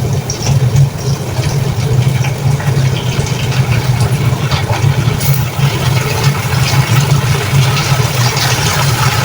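A loud, steady low mechanical hum, engine-like, with faint scattered crackling above it from red onion, garlic and ginger frying in oil in a pan.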